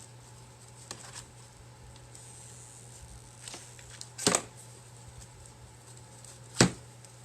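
Handling noises from hot-gluing rope onto a clay pot: a few sharp taps and knocks, the two loudest about four and six and a half seconds in, over a steady low hum.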